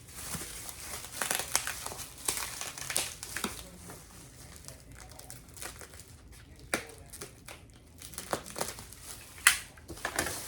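Paper packing material crumpling and crinkling as hands dig through a shipping box, in irregular bursts, busiest in the first few seconds, with one sharp click near the end.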